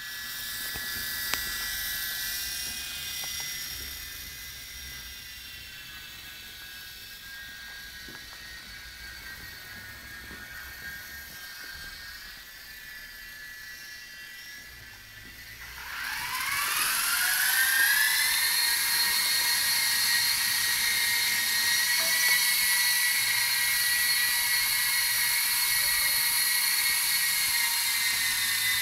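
Blade mCX micro coaxial RC helicopter hovering and flying, its small electric motors and rotors giving a steady high-pitched whine. About sixteen seconds in the whine rises in pitch and gets louder, then holds steady at the higher pitch.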